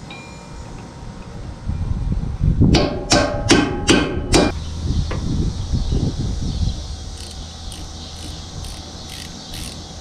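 About five ringing metal-on-metal clanks in quick succession a few seconds in, from steel hand tools working on the baler's steel. Near the end, a faint, even, high ticking, about two or three ticks a second.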